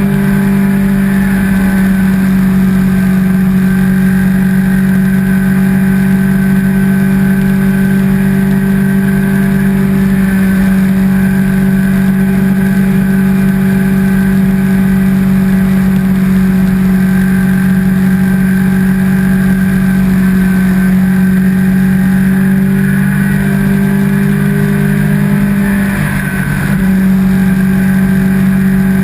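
Sport motorcycle engine running at a steady cruising speed, its note holding one pitch and briefly easing off about 26 seconds in.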